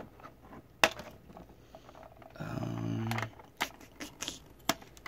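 Scissors cutting through a clear plastic packaging tray: sharp snips and crackles of the plastic, one about a second in and several more near the end. A short hummed voice in the middle.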